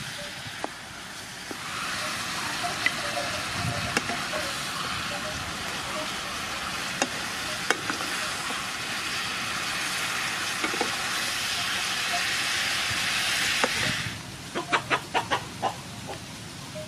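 Sea snail, onion, carrot and green peppercorns stir-frying in hot oil in a pan: a steady sizzle with occasional sharp taps. The sizzle cuts off about three seconds before the end and is followed by a quick run of sharp clicks.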